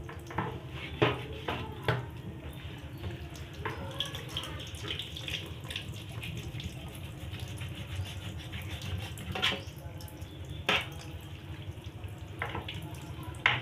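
Tap water running into a metal sink as raw pork is washed by hand, with a few sharp knocks and clatters now and then.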